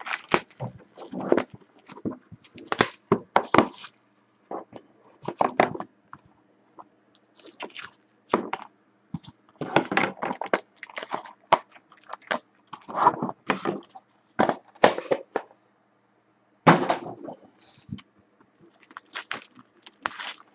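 Plastic and foil trading-card packaging handled and peeled open: irregular bursts of crinkling and crackling with a few knocks, as a box is opened and a foil pack is unwrapped.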